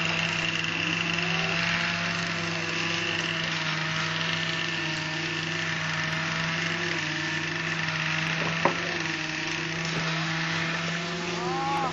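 A steady low mechanical hum, like an engine running at a constant speed, with one sharp click about two-thirds of the way through.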